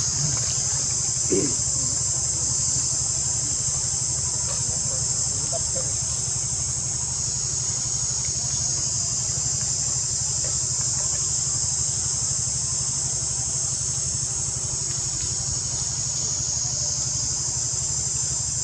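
Steady, high-pitched chorus of insects droning without a break, over a steady low hum.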